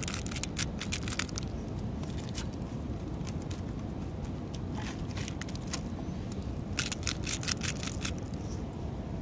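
Steady rushing of a waterfall behind a crackling wood campfire, with clusters of sharp crackles and paper crinkles as the raw steak is patted down on parchment paper.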